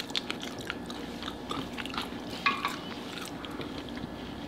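Close-miked chewing of french fries and a burger: irregular small wet mouth clicks and soft crunches over a faint steady hum.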